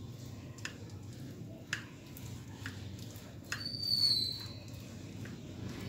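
Knife cutting down through set carrot barfi, its blade clicking against the glass dish a few times. A little past halfway comes a brief high squeak, about a second long and falling slightly, the loudest sound here.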